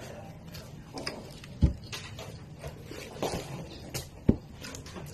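Eating buttered shrimp by hand: chewing, lip smacks and finger licking, with several short sharp clicks as the shrimp is pulled apart.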